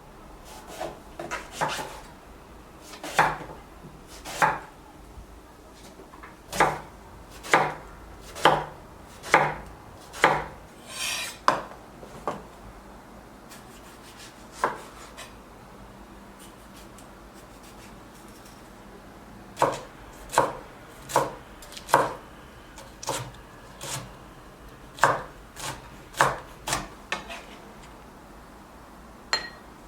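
A kitchen knife chopping on a cutting board: separate strokes about one a second, in two runs with a pause of a few seconds between them.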